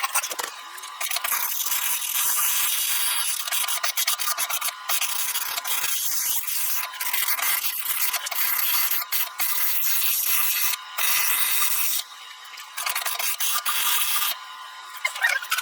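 An abrasive tool working over metal, run in strokes with short pauses between them. This fits cleaning up the welds on the metal blower housing.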